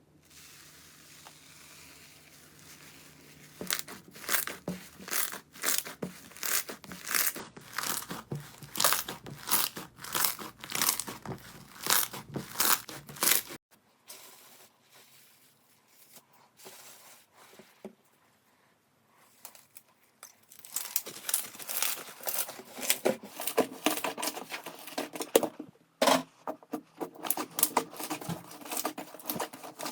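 Slime being squeezed and worked by hand, making dense runs of sharp crackles and pops, with a quieter stretch of a few seconds in the middle.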